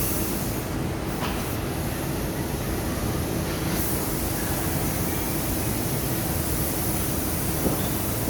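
ATK 687 two-stroke chainsaw running steadily at an even speed, a dense unbroken noise with a faint steady hum in it.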